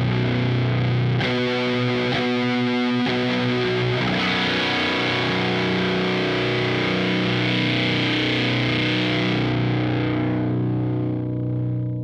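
Electric guitar played through a Way Huge sTo Super Terrific Overdrive pedal: overdriven chords and riffs with a distorted edge. Near the end the sound turns darker and softer as the last notes ring on.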